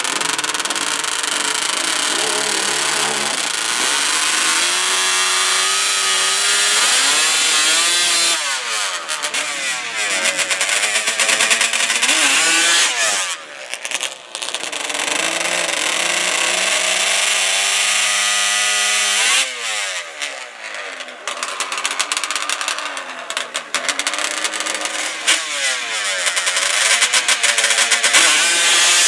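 Racing ATV engines at full throttle with high, buzzing revs. The pitch falls away sharply twice, about a third of the way in and again past halfway, as the machines back off or pass, and then climbs back.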